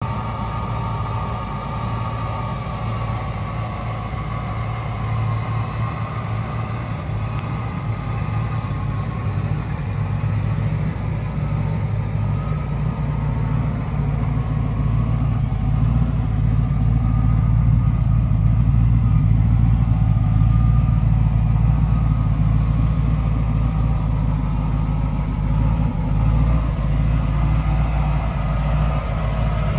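Vortech V3-supercharged 1995 Ford Mustang GT with a fresh 306 V8 idling steadily, a little louder for a few seconds past the middle.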